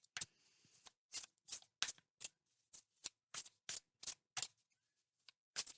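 Tarot cards being shuffled by hand: a string of short, crisp card slaps and flicks, about two or three a second, with a brief pause near the end.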